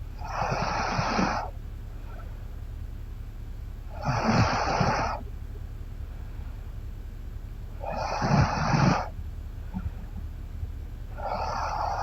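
A woman snoring in her sleep: four snores, each about a second long, coming about every four seconds.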